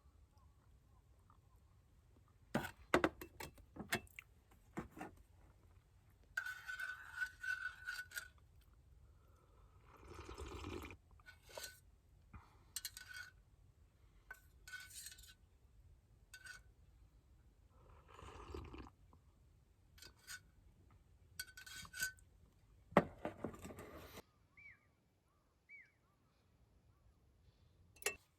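Tableware being handled: a series of separate light clinks, knocks and short scrapes, some with a brief glassy ring.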